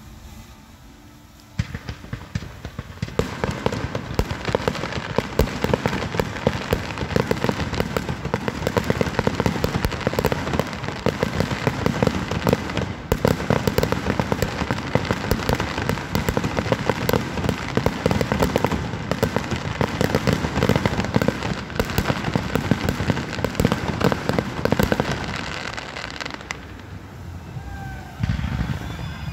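Fireworks finale barrage: a dense, rapid run of bangs and crackling bursts that starts about two seconds in and dies away a few seconds before the end.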